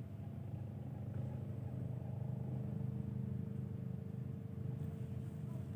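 An engine running steadily off-screen, a low hum that grows a little louder in the middle and eases off again.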